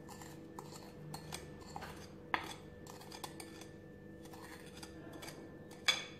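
A metal spoon scraping and clinking against a ceramic bowl while sticky ground gond paste is scraped out of it: light irregular scrapes and taps, with two sharper clinks, one about two seconds in and one near the end.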